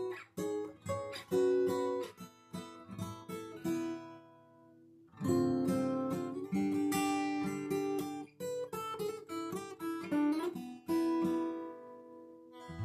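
Solo acoustic guitar playing a slow instrumental piece of single notes and chords. The music rings out and fades into a pause about four seconds in, starts again about a second later, and fades once more near the end.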